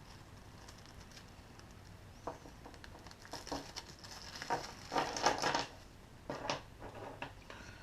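Parts being handled by hand on a desk: irregular rustling and light clicks, busiest about five seconds in.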